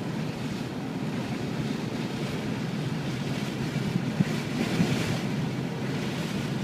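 Steady low rumble of a car creeping along slowly, heard from inside the cabin, with two short louder sounds about four and five seconds in.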